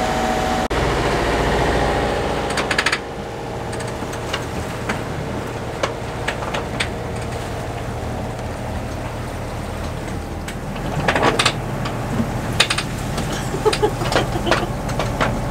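Steady low drone and hiss of a sailing yacht under way at sea. A run of sharp clicks and knocks comes in the last few seconds.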